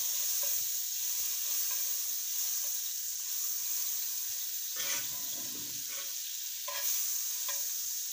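Butter sizzling steadily as it melts in a hot frying pan, with two short louder touches about five and seven seconds in.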